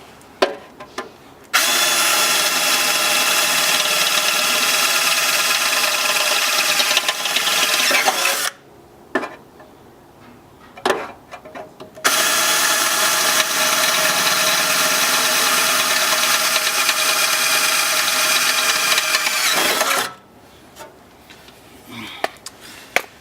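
Power drill running at a steady speed in two long runs of several seconds each, enlarging bolt holes in the car's fender well, with a few clicks and knocks in the pause between them.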